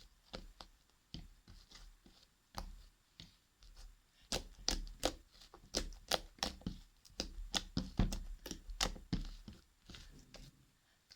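Fluffy slime made with shaving foam being squeezed and stretched by hand, giving a run of sharp pops and clicks. They come thickest in the middle and thin out near the end.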